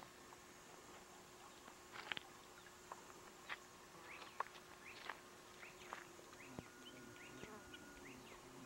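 Near-silent outdoor ambience: a faint steady hum and hiss with scattered small clicks, and a run of faint short high chirps in the second half.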